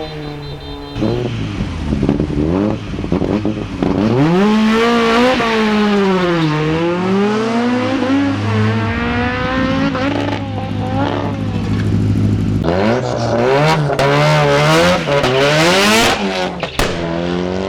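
Race car engine on a hill climb, revving up and dropping back again and again as it accelerates and lifts off, with a quick series of rises and drops in pitch in the last few seconds.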